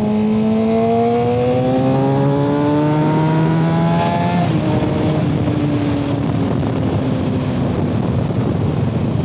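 Suzuki GSX-R 600 inline-four engine accelerating hard, its pitch rising for about four seconds. An upshift then drops the pitch and it holds a steady cruise, with wind noise over the microphone. It is pulling with full power after a new stator.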